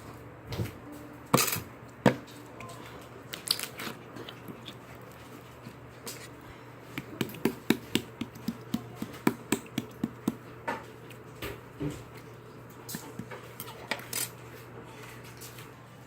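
Spoon and cup sounds while eating bead ice cream: scattered light clicks and taps, with a quicker run of about three a second in the middle.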